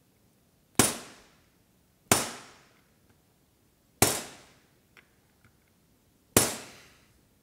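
Four hammer blows on a steel socket used as a bearing driver, each a sharp metallic crack with a brief ring. The blows drive a bearing deeper into a 4-speed Harley-Davidson Sportster transmission trap door so it sits recessed instead of proud.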